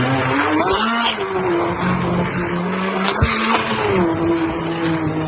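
Moulinex electric kitchen mixer running steadily as it mixes thick baghrir batter of semolina and yeasted water; its motor pitch wavers a little. It is switched off and stops abruptly at the end.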